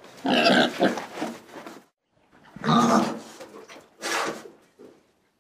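An animal calling three times: two long loud calls and a shorter third, followed by a couple of faint short ones.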